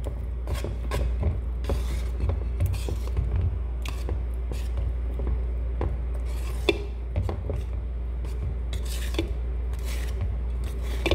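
Wire whisk beating thick pancake batter in a metal bowl: irregular clinks and scrapes as the wires strike and drag along the bowl, over a steady low hum.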